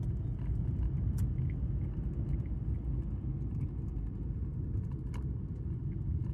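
Steady low rumble of a moving car heard from inside the cabin: engine and road noise while driving. Two faint clicks, about a second in and near the end.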